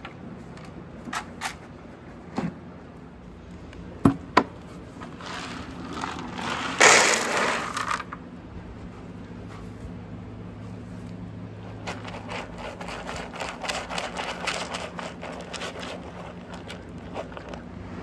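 Dry hay rustling, scraping and crackling as it is handled and dropped into horse stalls, with a few sharp knocks about four seconds in and a louder rustle near the middle.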